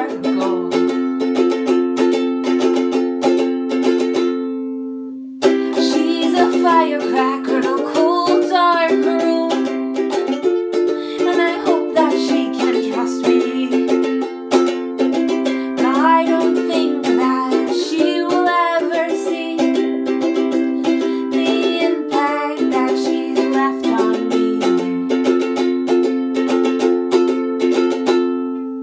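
Ukulele strummed in a steady rhythm of chords in a small, echoey bathroom. The strumming breaks off for about a second near the four-second mark, then resumes with a woman's voice singing a melody over it.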